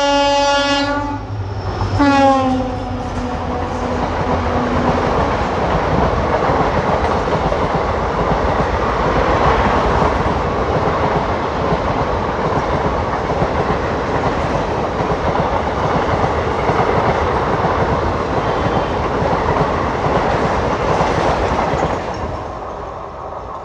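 WDP 4D diesel locomotive's horn sounding, the blast cutting off about a second in, then a second short blast about two seconds in whose pitch drops as the locomotive passes. Then the loud rushing and rattling of the express train going by at speed, fading near the end.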